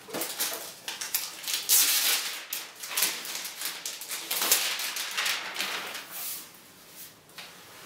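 Rustling and scraping handling noises from packaging and the laptop being moved about by hand: a quick run of irregular rustles that thins out near the end.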